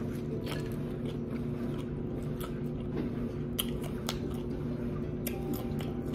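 Crisp tostada being bitten and chewed: sharp crunches come every second or so, a few close together near the end. A steady low hum runs underneath.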